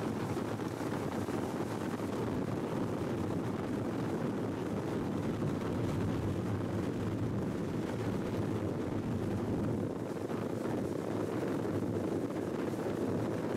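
Steady rumble of a motorboat under way, with water rushing past the hull and wind buffeting the microphone.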